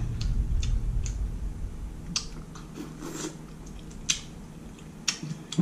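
A person eating a saucy seafood boil with her fingers, close to the microphone: chewing and wet mouth noises, with a few sharp smacks about two, four and five seconds in. A low rumble at the start.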